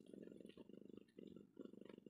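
Cat purring softly, a low, fast-pulsing purr that breaks for a moment at each breath, about three times.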